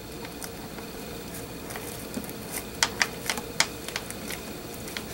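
Light, irregular clicks and taps from hands handling beaded trim and felt flowers on the inside of a train case lid, with a quick cluster of sharper clicks about three seconds in.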